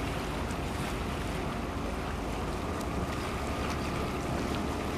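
Steady outdoor ambience beside a harbour canal: an even background hiss over a low rumble, with no distinct events.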